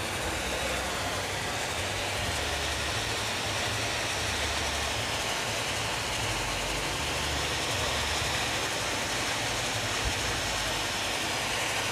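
Generator set engine running steadily: a low, uneven hum under an even hiss of background noise, while the sound system itself is still silent.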